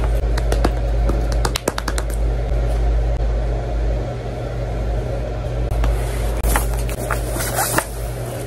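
Hands handling a cardboard box: a quick run of taps and scratches on the box about the first two seconds, then the rustle of the keyboard's white foam packaging wrap being pulled near the end.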